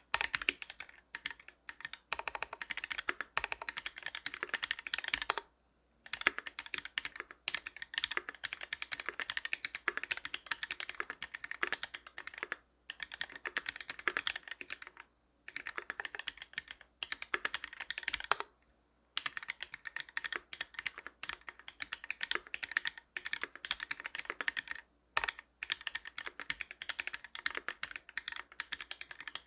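Custom mechanical keyboard with a brass plate, lubed Milky Gateron White linear switches on 57 g springs and GMK doubleshot ABS keycaps being typed on quickly: a fast stream of keystrokes broken by brief pauses every few seconds.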